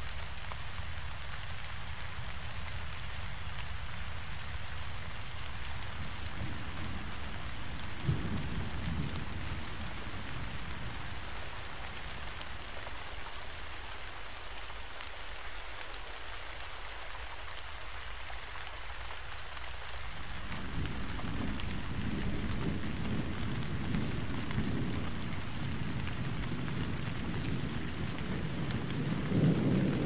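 Steady rain falling, with low rolls of thunder: a short one about eight seconds in and a longer rumble building through the last third.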